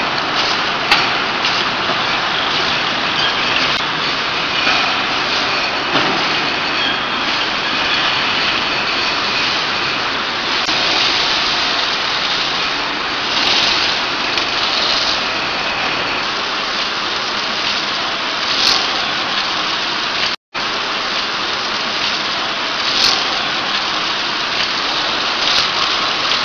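Water bottling line machinery running: a steady hissing, clattering factory noise from the filling and shrink-sleeve labelling machines and conveyors, with a few brief louder hisses and light clicks. The sound cuts out for a moment about twenty seconds in.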